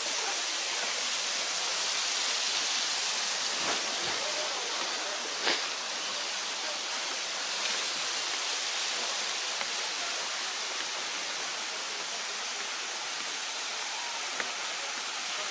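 Waterfall's falling water making a steady, even rushing hiss that does not change.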